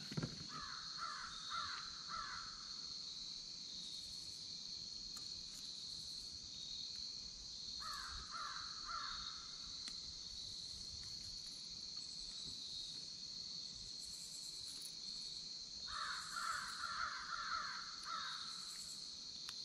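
Crickets or other insects chirring steadily. Over them a bird calls three times, each time a run of rapid notes lasting about two seconds: at the start, about eight seconds in, and near the end.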